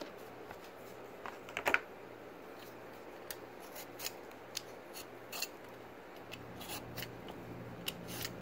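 A blade peeling the skin off a cucumber on a plastic cutting board: irregular short scrapes and clicks, with a louder clatter of strokes about one and a half seconds in.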